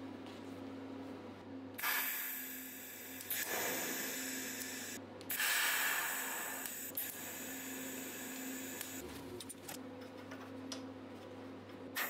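TIG welding arc on small steel bracket pieces: an even hiss that starts about two seconds in, breaks off briefly near five seconds, and fades out near nine seconds, over a steady low hum.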